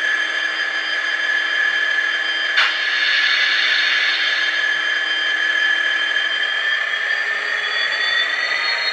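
Dapol N gauge Class 66 model locomotive running under load, its DCC sound decoder playing Class 66 diesel engine sound through small onboard speakers, mixed with the high whine of the model's motor and drive. The steady high tones hold until near the end, where one rises and another falls in pitch; a single click comes about two and a half seconds in.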